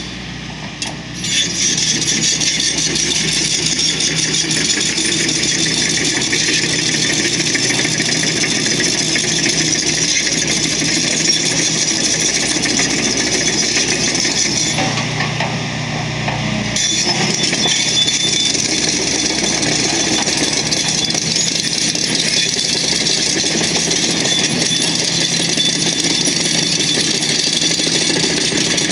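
Excavator at work on road repairs: its diesel engine running under a steady, loud mechanical noise from the work. The noise drops briefly just after the start, and again for about two seconds in the middle, when the engine hum comes up louder.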